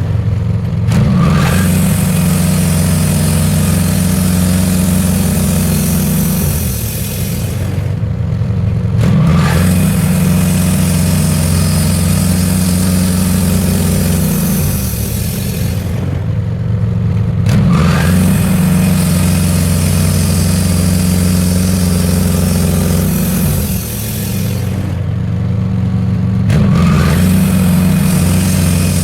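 Wood-Mizer portable band sawmill at work: the engine runs steadily while the band blade cuts ash in passes several seconds long. The cutting noise drops out briefly three times between passes, then picks up again.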